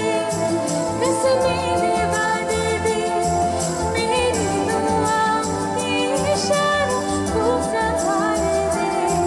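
A woman singing a melody into a microphone over amplified backing music with a steady beat.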